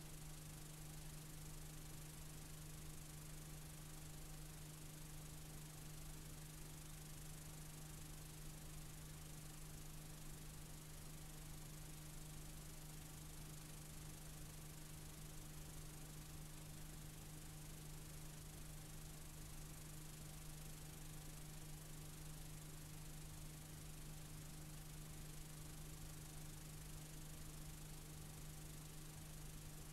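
Faint, steady hiss with a constant low hum: the noise of an unrecorded stretch of videotape playing back.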